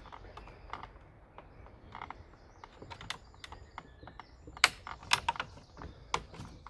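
Screwdriver prying a circlip off the plastic cleaner head of a Dyson DC04 vacuum: irregular small clicks and scrapes, with a cluster of louder clicks about halfway through.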